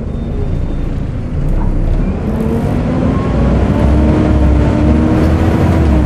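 Volvo B7TL double-decker bus's 7-litre six-cylinder diesel engine heard from the upper deck, pulling away and gaining revs, its pitch rising and growing louder from about two seconds in. The whine of the engine cooling fan runs with it, the 'hoover' sound these buses are known for.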